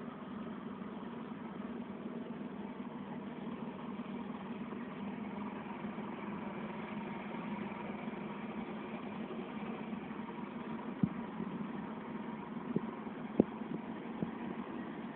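An engine running steadily at a low, even speed, with a few sharp knocks over the last few seconds.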